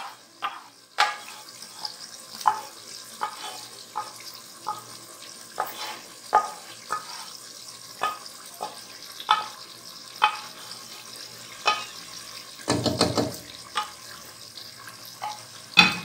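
A wooden spoon scrapes and taps against a frying pan as a thick paste of fried yogurt, nuts and ginger-garlic is scraped out into a pot of chicken korma. The korma sizzles steadily underneath. There are irregular knocks about once a second and a louder clatter about three-quarters of the way through.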